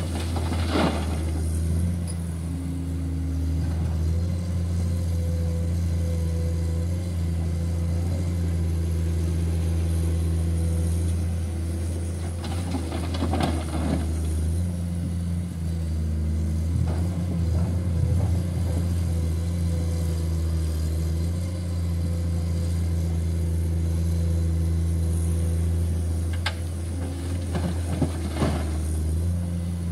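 Komatsu PC210 excavator's diesel engine running steadily under work. Soil and rock tip from its bucket and clatter into a steel dump-truck bed three times: about a second in, around the middle, and near the end.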